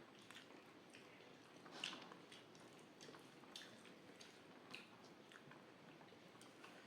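Faint chewing and soft wet mouth clicks of a person eating rice, in scattered short smacks several times over.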